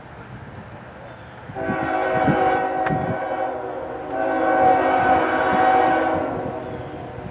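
Approaching CSX freight locomotive's multi-chime air horn sounding two long blasts, the second one starting right after a brief break, at a whistle sign.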